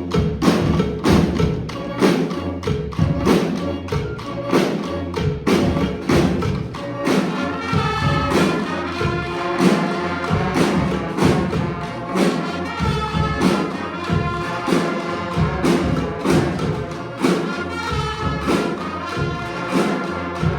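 Community street band of brass and drums playing. A steady drum beat carries the opening, and about eight seconds in the horns come in with a melody over the drums.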